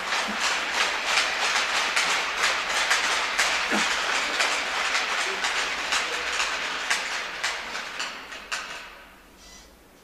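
Crowd applauding, many hands clapping at once, dying away near the end.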